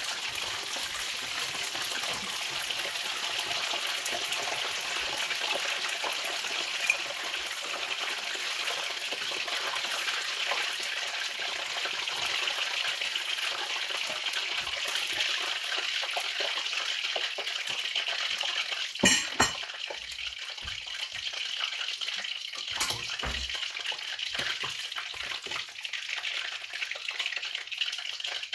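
Chicken deep-frying in hot oil, a steady sizzle and crackle. A couple of sharp knocks about two-thirds of the way in, and a few fainter ones shortly after.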